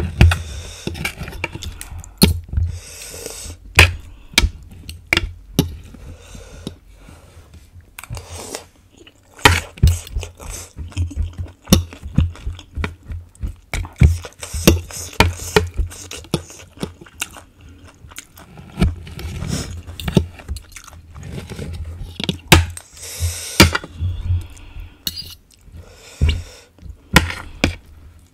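Chewing and eating sounds from pork ribs and black sticky rice, mixed with frequent sharp clicks and scrapes of a metal fork and spoon on a plate.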